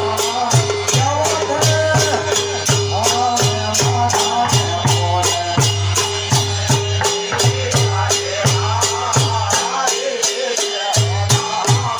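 Phag folk music played loud: a fast, even jingling percussion beat of about three to four strikes a second over a deep repeating drum, with a wavering melody above. The drum drops out for about a second near the end.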